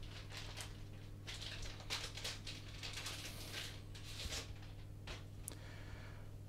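Faint rustles and light scrapes of a metal chainsaw guide bar and chain being handled in gloved hands, over a steady low hum.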